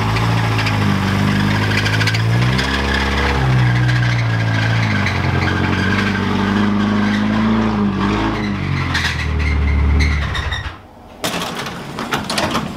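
Subaru Impreza 2.5i's flat-four engine running at low revs while the car is eased forward, its pitch rising and falling with the throttle. The engine is switched off about ten seconds in, followed by a few clicks and knocks.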